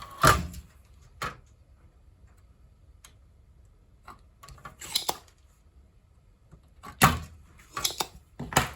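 A few sharp clicks and knocks of small tools handled on a workbench during soldering, spaced out, with several close together near the end.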